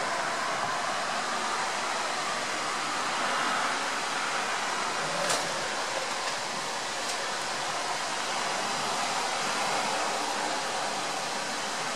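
Steady hiss of light rain falling. A single sharp click about five seconds in, and a fainter one about two seconds later.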